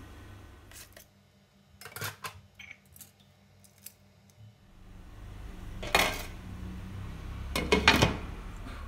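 Glass pan lid clinking against the rim of a non-stick pan, a sharp clink about six seconds in and a quick cluster of clinks near the end. A few lighter clicks and taps come before it, over a low hum.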